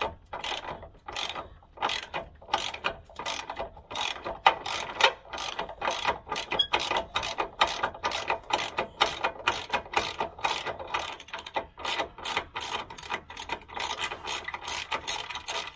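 Socket ratchet on a long extension bar turning a bolt, its pawl clicking in quick strokes about three times a second.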